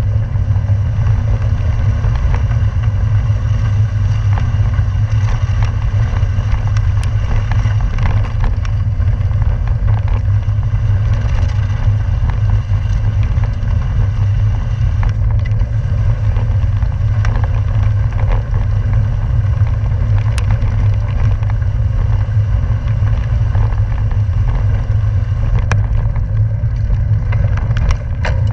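Wind buffeting the microphone and a bicycle's tyres rolling over a gravel road at speed: a loud, steady low rumble with a few sharp clicks from gravel and rattles.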